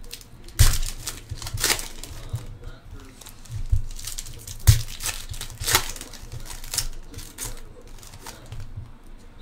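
Plastic trading-card pack wrappers of 2015-16 Panini Prizm football hobby packs being torn open and crinkled in the hands, in a run of sharp crackles, the loudest about half a second in and just before the middle.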